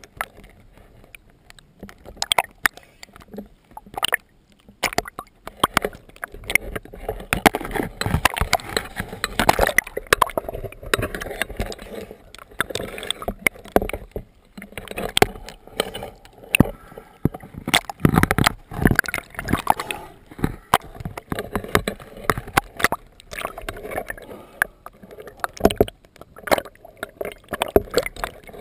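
Water sloshing and slapping against a boat's hull in many irregular splashes, with no steady engine tone.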